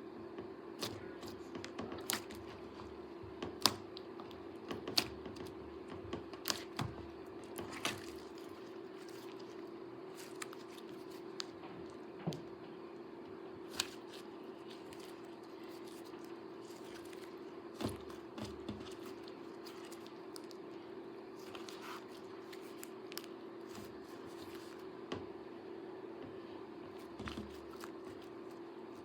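Slime being squeezed and poked by hand, giving irregular sharp clicks and pops over a steady low hum.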